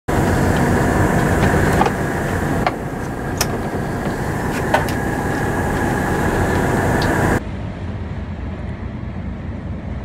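Steady engine drone and hull noise inside the wheelhouse of the RV Braveheart under way, with a few sharp clicks and knocks. About seven seconds in the sound changes abruptly to a quieter, duller rumble.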